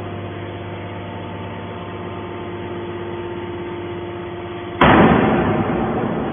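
Hydraulic metal baler running with a steady hum. About five seconds in comes a sudden loud burst of noise, a crash or rush, that fades away over a second and a half.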